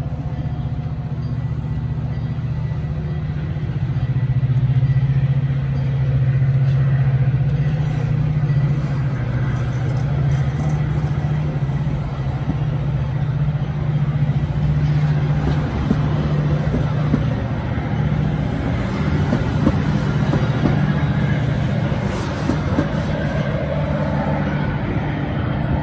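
Metra bilevel push-pull commuter train pulling out and rolling past, its wheels clacking on the rails over the steady low drone of its F40PH diesel locomotive.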